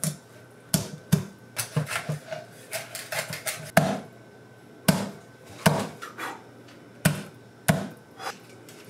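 Cleaver chopping through a rockfish's backbone and striking a wooden cutting board: about a dozen sharp, irregularly spaced chops, the loudest a little before halfway.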